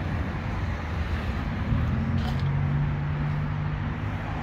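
Steady low rumble of motor-vehicle noise, with a low steady hum joining a little under two seconds in.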